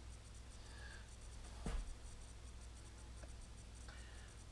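A single sharp knock about a second and a half in, then a light scrape near the end as a steel height-gauge base is slid across a granite surface plate. A faint low hum runs underneath.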